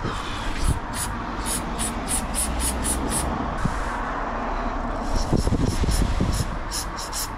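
Aerosol spray can giving two runs of short, quick spurts, the second starting about five seconds in, sprayed onto a corroded circuit board to clean it.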